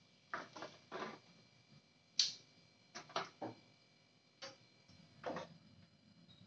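Kitchen handling sounds: kitchen tongs clicking and cookware knocking as fried tempeh is lifted out of a non-stick wok and a saucepan is set on the gas stove. About eight short, irregular clicks and knocks, the sharpest about two seconds in.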